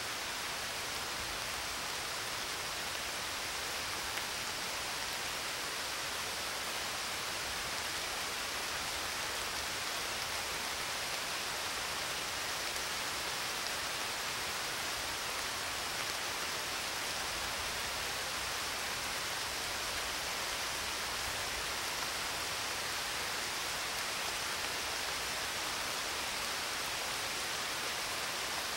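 Steady, even hiss of rain with no distinct drops or thunder.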